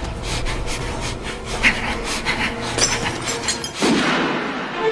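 Horror radio-show intro sound effects: a rapid run of short noisy strokes over a low drone, then a loud swell of noise about four seconds in.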